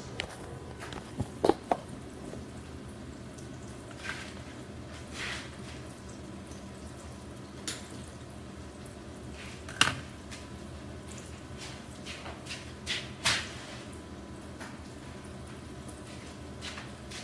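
Batter-coated sweet potato slices frying in hot oil in a deep pan, a steady sizzle and crackle. Scattered clicks and knocks of utensils and handling come through it, the loudest about a second and a half in and about ten seconds in.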